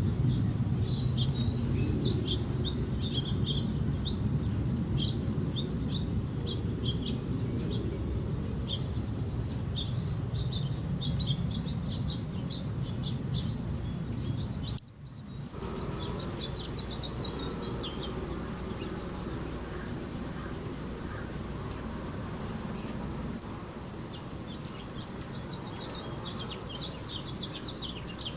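Hummingbirds chittering in quick runs of high chip notes, with a few sharper squeaks, over a steady low hum. The sound breaks off for a moment about halfway through.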